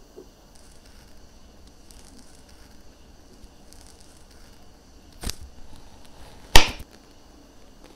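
Faint soft scraping strokes of a ceramic peeler taking the skin off a peach, then a ceramic knife cutting into the peeled peach with two sharp knocks on the cutting board about a second apart; the second knock is the loudest.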